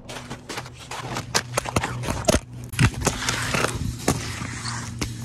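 Quick, irregular footsteps and knocks on hard ground, with the camera being jostled, over a low steady hum.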